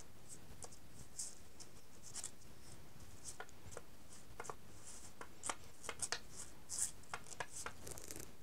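Faint, scattered light scratches and ticks of a paper-cement brush being stroked over a small construction-paper circle, coating it with glue.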